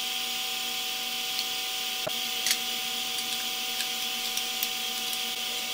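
Steady machine hum with an even hiss, with a few faint clicks of metal tools and parts being handled.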